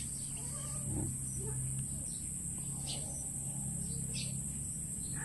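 Scattered short bird chirps and faint poultry calls over a steady high-pitched insect drone and a low steady hum.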